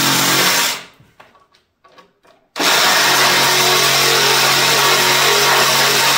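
Cordless reciprocating saw cutting through the ribs of a plastic bucket. It runs steadily, stops for about two seconds near a second in, then starts again abruptly and cuts on.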